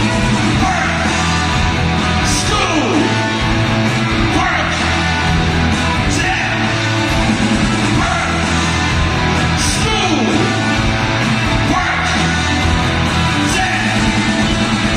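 Rock band playing live on electric guitars, bass and drums, with a lead singer singing, heard from among the audience.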